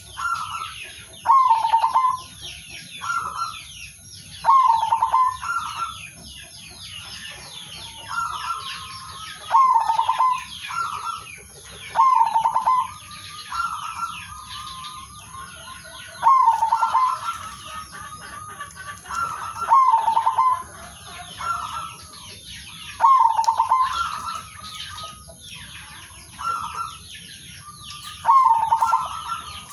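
Male zebra dove cooing: a dozen or so short rolling coo phrases, one every two to three seconds, with thin high chirping from other birds behind.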